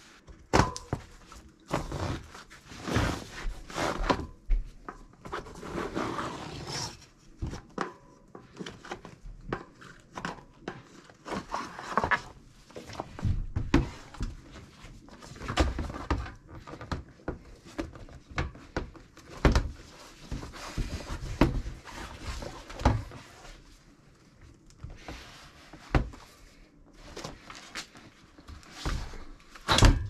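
Bicycle tyre and inner tube being pulled off the rim by hand: irregular knocks and thuds of the wheel being handled, with rubbing scuffs of rubber against the rim.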